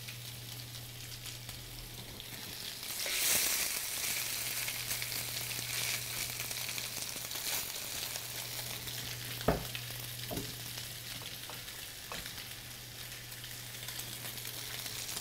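Fish cake mixture of grated sweet potato and courgette frying in hot oil in an electric frying pan: a steady sizzle that swells about three seconds in, with a couple of sharp knocks of the spoon against the pan around ten seconds in.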